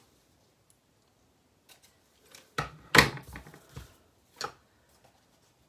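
Craft scissors snipping satin ribbon ends, a few light clicks, then a cluster of sharp clacks and knocks about halfway through, one much louder, as the scissors and box are handled on the craft mat, with one more knock near the end.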